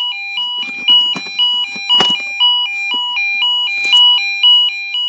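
Electronic fire alarm sounder giving a two-tone alarm, a higher and a lower pitch alternating evenly about twice a second, with a few sharp clicks over it.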